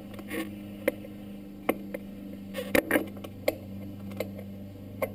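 Scattered clicks and light knocks of hands fitting the air filter into a dirt bike's plastic airbox, with a cluster of louder knocks near the middle, over a steady low hum.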